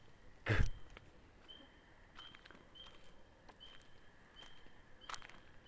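A loud thump about half a second in, then an animal's short high chirp repeated roughly every two-thirds of a second over a faint steady high drone, with a few light clicks.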